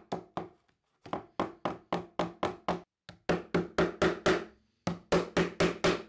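Hammer tapping bent-over nail tips down into a pine board, clinching the nails so the hooked ends bite into the wood. The light taps come quickly, about three to four a second, in short runs with brief pauses, each tap ringing briefly.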